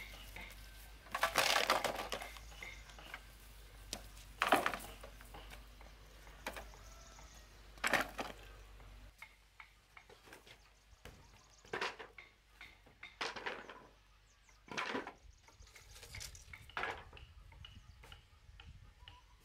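Wooden pieces knocking and clattering: a longer clatter about a second in, then single sharp wooden knocks every second or two as offcut blocks are picked up and dropped onto a pile.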